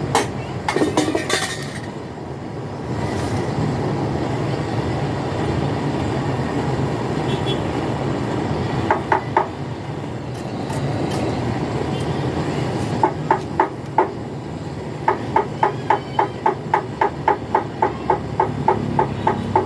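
Sharp metallic taps, as from a hammer on metal, in short groups; near the end they become a steady run of about three taps a second. A steady low hum runs underneath.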